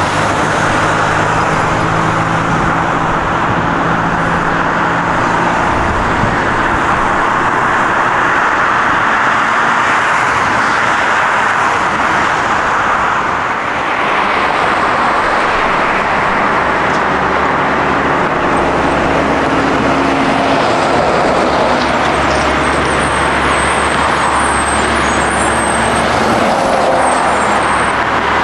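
Loud, steady jet engine roar from airliners near the runway: first an Embraer E175 regional jet, then, after a brief dip, an Airbus A319 on final approach. A faint high whine joins in the second half.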